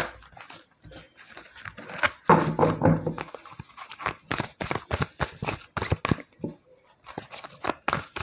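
Tarot cards being gathered up and shuffled by hand, a quick run of papery clicks and taps through the second half. About two seconds in there is a brief, louder pitched sound.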